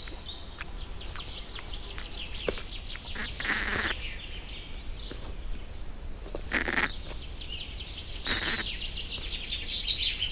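Wild songbirds chirping rapidly and continuously, high in pitch, with three short noisy bursts about four seconds in, then twice more a few seconds later.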